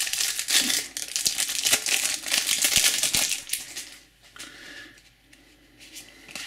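Clear plastic wrapper crinkling as it is peeled off a stack of trading cards, busy for the first three and a half seconds or so, then falling much quieter.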